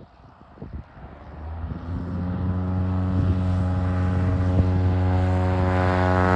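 Cessna 170B's piston engine and propeller at takeoff power on the runway roll. The engine sound rises and grows louder over the first two seconds or so, then holds a steady note. Wind buffets the microphone at the start.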